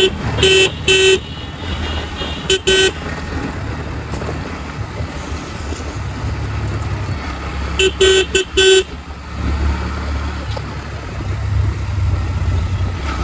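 Vehicle horn beeping in short bursts: two beeps near the start, two more about two and a half seconds in, and four quick beeps around eight seconds in. Under them runs the steady sound of a motorcycle engine riding along, with wind.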